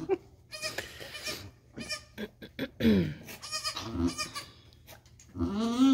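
Goats bleating around a newborn kid: one falling bleat about three seconds in and a longer bleat near the end, with a few short soft noises in between.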